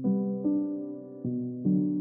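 Background music: chords struck about every half second, each fading away before the next one comes in.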